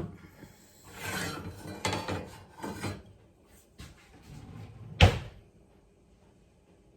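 A pot being moved off the stove: scraping and clattering for a few seconds, then a single sharp knock about five seconds in as it is set down.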